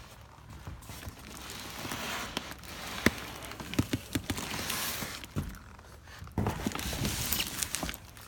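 Footsteps and scattered knocks and clicks, with two stretches of rustling noise, the first about a second in and the second near the end.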